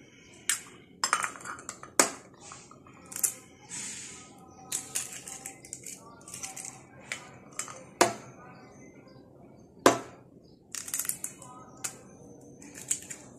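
Eggs cracked one after another against a glass bowl: sharp knocks and clinks, the loudest about 2, 8 and 10 seconds in, with lighter clicks and shell crackling between as the shells are pulled apart.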